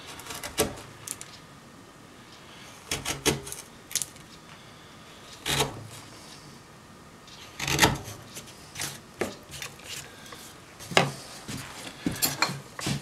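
Bench chisel paring waste out of a groove cut across a wooden board: about ten short, sharp cracks and scrapes at uneven intervals as chips split away from the wood.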